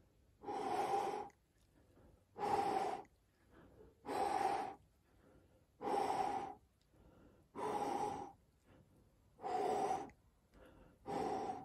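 A person breathing out hard onto a CO2 sensor from close up: seven long exhalations, about one every two seconds, the breath's carbon dioxide driving up the sensor's reading.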